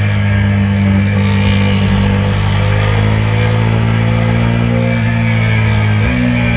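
A 2022 KTM RC 390's single-cylinder engine running hard at near-steady revs, its note sagging slightly and then jumping up in pitch about six seconds in as it is downshifted under braking.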